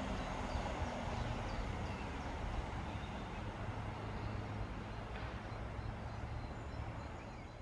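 Diesel multiple unit train moving away down the line, its engine and running gear a steady low drone that slowly fades as it recedes. Birds chirp faintly over it.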